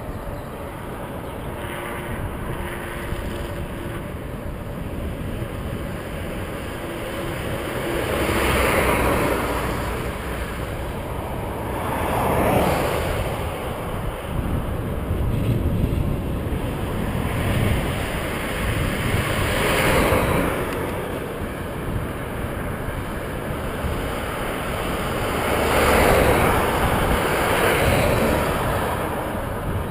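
Steady wind rush over the microphone of a bicycle-mounted camera riding along a highway, with several cars overtaking one after another, each a swell of tyre and engine noise that rises and fades away.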